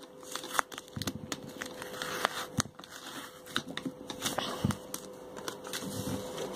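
Paper crinkling and rustling in irregular crackles as the layers of a homemade paper package are handled and peeled apart.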